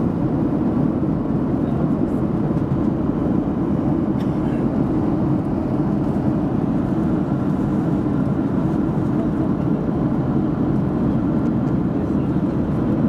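Steady cabin noise of a Boeing 737 jet airliner in cruise: engine and airflow noise heard from inside the cabin, an even low rush with no breaks.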